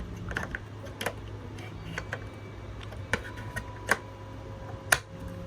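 Scattered clicks and taps of hard plastic as a part is fitted onto a cordless phone, about ten in all, the loudest near the end.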